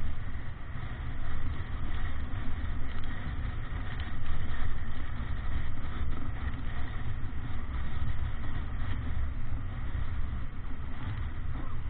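Wind buffeting the microphone over the rush of water along the hull of a Davidson 36 sailing yacht heeled hard and sailing upwind, a steady rough noise that swells and eases, loudest about four seconds in.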